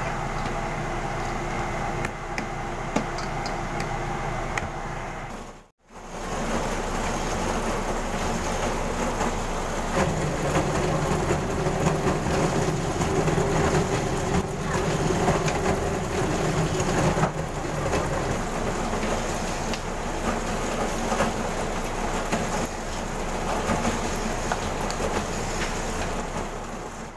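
Bakery dough roller machine (dough brake) running steadily, its motor and rollers rumbling as bread dough is passed through to knead it, with a brief dropout about six seconds in.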